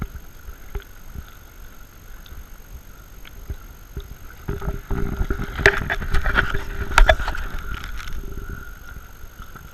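Sea water lapping and sloshing against a half-submerged action camera, with small knocks. About halfway through it turns into a louder churning rumble with sharper knocks for several seconds, then settles again.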